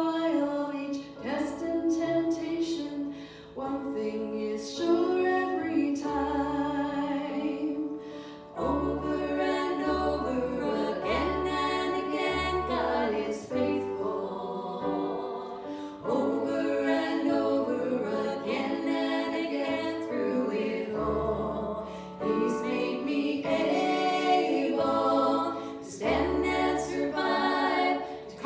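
Several voices singing a worship song together. Low sustained bass notes come in about six seconds in and continue under the singing.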